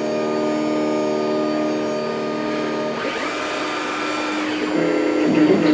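X-Carve Pro CNC router running, its spindle and 1/8 inch single-flute spiral upcut bit cutting into 3-ply plastic pickguard sheet. The steady machine tone shifts with a rising whine about three seconds in as the gantry moves, and the sound grows louder and rougher near the end.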